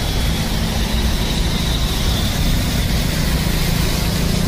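Motorcycle engines running in traffic on a flooded street, with a steady rushing noise of water and traffic around them.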